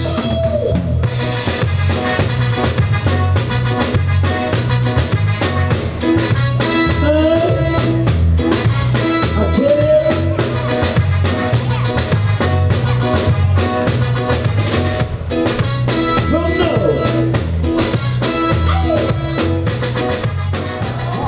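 Band music with a drum kit and bass keeping a steady beat, and a voice singing now and then.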